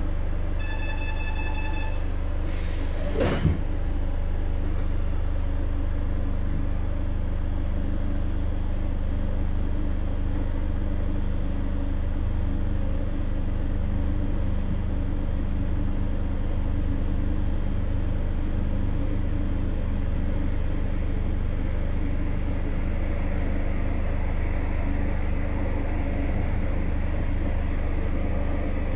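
Cabin noise inside a Renfe series 446 electric commuter train: a steady low rumble of the train running on the track. A short electronic warning tone sounds in the first second, and a brief sound sweeps down in pitch about three seconds in.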